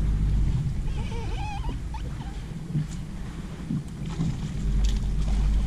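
Wind rumbling on the microphone on open water, with a short warbling animal call about a second in.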